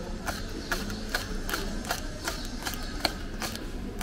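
Kitchen knife slicing green chillies into rings on a wooden cutting board: sharp, even taps of the blade striking the board, about two and a half a second.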